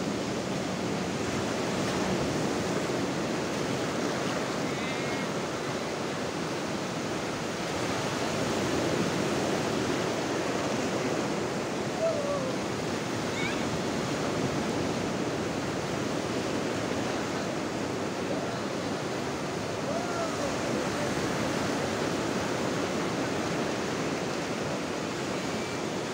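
Sea surf breaking and washing up a flat beach: a steady, even rush of waves. Faint distant shouts come through a few times.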